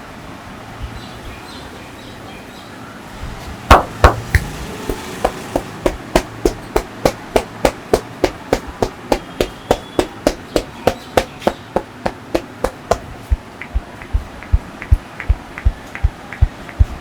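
Hands striking the body in a percussive massage: two loud slaps about four seconds in, then a steady run of sharp slaps at roughly three a second. From about thirteen seconds in they turn into duller, deeper thuds.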